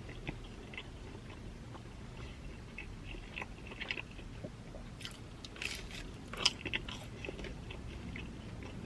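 Close-miked mouth sounds of a person chewing pepperoni pizza: soft, scattered wet clicks and smacks, with a cluster of sharper ones past the middle.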